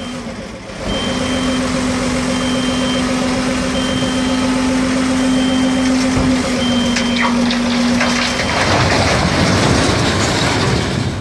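Iveco tipper truck's engine running hard with a steady drone while the hydraulic ram lifts the loaded bed, a high beep repeating over it. From about eight seconds in the drone drops away under a heavy rumble of large rock slabs sliding out of the tipped bed onto the ground.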